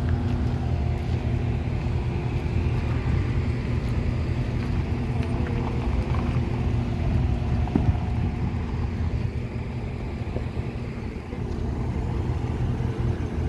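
Motor vehicle engines running steadily close by: a constant low hum with a few steady tones.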